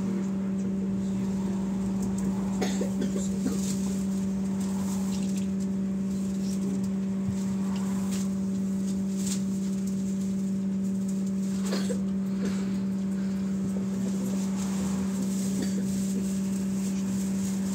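Steady electrical hum inside a trolleybus standing at a stop, with a few light knocks and clicks a few seconds in and again about two-thirds of the way through.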